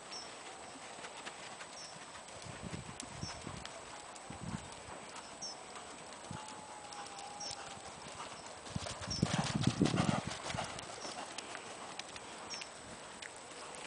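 Hoofbeats of a grey Irish Sport Horse gelding being ridden around an arena, soft thuds on the loose surface. The sound grows louder for about a second and a half, about nine seconds in.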